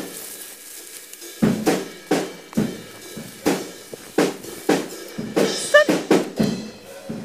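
Drum kit being played: separate bass drum and snare hits with cymbal wash, at an uneven spacing of roughly one hit every half second, picking up about a second and a half in.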